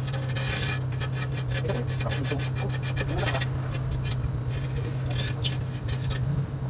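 Small razor blade scraping old hardened silicone off the glass edges of an aquarium tank, in quick rasping strokes. The strokes are densest in the first half and sparser later, over a steady low hum.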